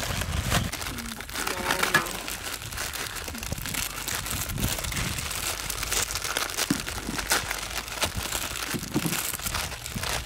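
Plastic instant-noodle packets crinkling and tearing as several are opened and handled by hand, a dense run of crackles and rips.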